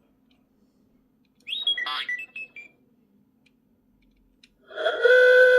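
Sound effects from a PFX Brick played through a loudspeaker by way of the audio adapter: a short chirping, gliding sound about one and a half seconds in, then a loud sustained horn-like chord of several steady tones near the end.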